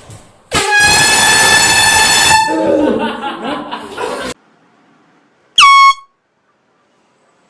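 Air horn blasted in a loud, steady, high-pitched tone for about two seconds, then a person cries out before it all cuts off suddenly. A second, short blast comes about five and a half seconds in; it dips quickly in pitch as it starts and stops abruptly.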